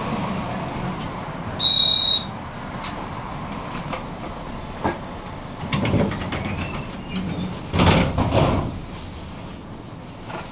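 Tram running with its rolling noise slowly fading. A short, high electronic beep sounds about two seconds in, and a louder clatter with a brief high squeal comes near eight seconds.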